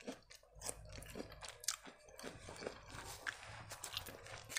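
Faint, close-up chewing of a mouthful of food: irregular wet clicks and small crunches as it is bitten and chewed.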